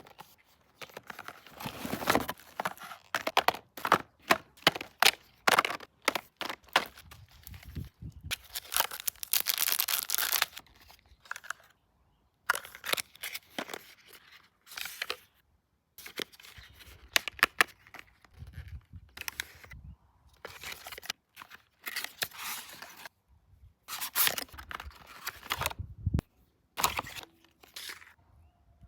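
Cosmetics packaging being unboxed by hand: crinkling and tearing of wrapping, with many short sharp clicks, in bursts separated by brief pauses.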